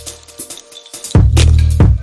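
Background music with a heavy bass line and a drum beat, dropping quieter briefly mid-way before a strong bass hit returns.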